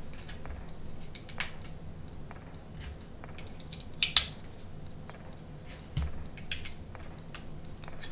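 Plastic Lego pieces clicking as they are picked from a loose pile and pressed onto a small assembly: separate sharp clicks a second or so apart, the loudest just after four seconds in.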